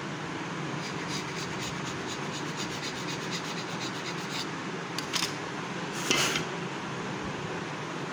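Knife blade drawing slits through rolled paratha dough, its tip scratching on the marble worktop in a quick run of fine scrapes, then two louder scrapes about five and six seconds in.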